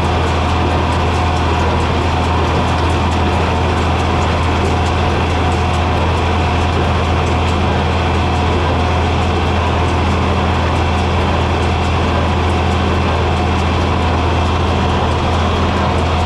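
John Deere 4020 tractor's six-cylinder engine running steadily, a constant low drone that holds the same speed throughout.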